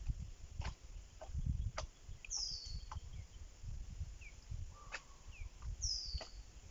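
Birds calling: a high whistle falling in pitch, given twice about three and a half seconds apart, with a few short chirps between, over a low fluctuating rumble and scattered clicks.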